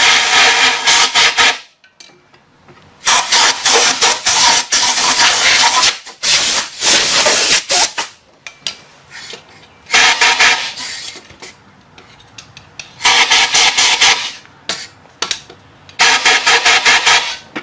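Compressed-air blow gun with a long nozzle blasting into a threaded bolt hole in a cast-iron hub, blowing rust and grit out of the freshly cleaned threads. It hisses in repeated blasts of one to several seconds with short pauses between them.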